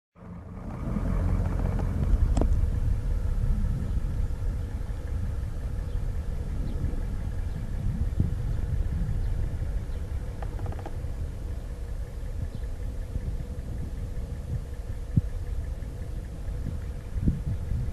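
1974 Ford 7000 truck's eight-cylinder diesel engine running as the truck drives, a steady low rumble with a few short knocks and clicks over it.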